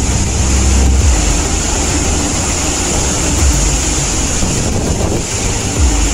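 Storm wind and heavy rain: a loud, steady rushing hiss, with gusts buffeting the microphone in deep rumbles that swell and fade, strongest in the first second and again near the end.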